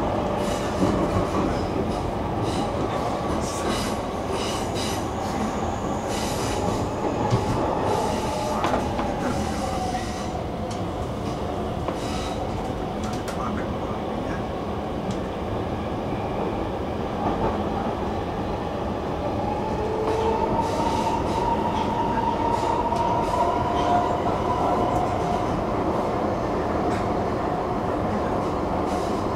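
Stockholm metro (tunnelbana) train running through a tunnel, heard from inside the car: a steady rumble with scattered clicks in the first half. A whine wavers in pitch a third of the way in and again through the second half.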